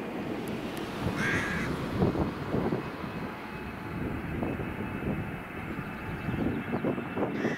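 Distant jet engine noise from a twin-engine regional airliner on its takeoff roll, with wind buffeting the microphone in low gusts and a thin steady whine from about three seconds in. A bird calls once about a second in.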